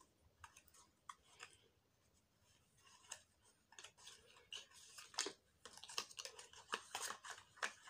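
Faint clicks, taps and rustles of a small paperboard product box and a plastic tube being handled while someone works at closing the box's flaps. The taps are sparse at first and come more often from about halfway through.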